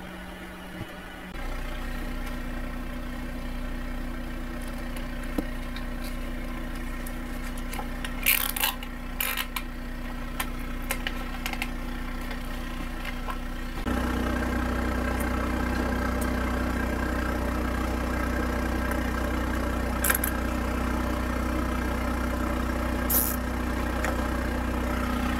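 Portable air compressor running steadily with a low drone, a step louder about a third of the way in and again about halfway. A few brief clicks and rustles of paper tags being handled come over it.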